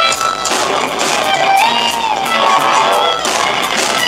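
Live rock band playing loudly: electric bass and drums with cymbals, under sliding, wailing high notes.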